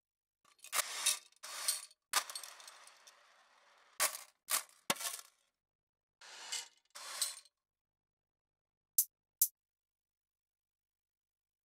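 Hip-hop drum-kit percussion one-shot samples auditioned one at a time in a software sampler: about eleven separate dry hits with gaps between them, bright and high-pitched, the one about two seconds in ringing on for a couple of seconds. There is no beat, each sample sounds alone.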